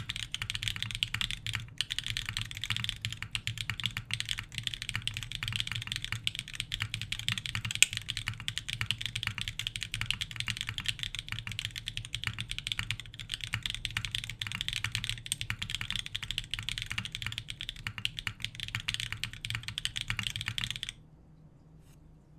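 Fast, continuous typing on a Geon Frog Mini mechanical keyboard with lubed Dark Jade tactile switches, an aluminium plate and DCS Sleeper keycaps: a dense clatter of keystrokes that stops suddenly near the end.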